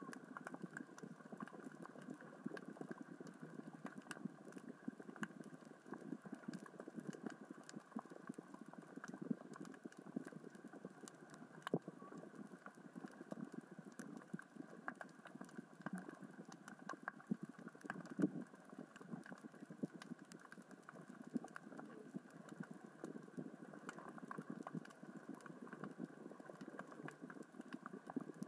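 Underwater crackling of small rocks rolling across the sea floor, pushed by the current and tide: a dense, steady patter of tiny clicks with a few sharper ones standing out.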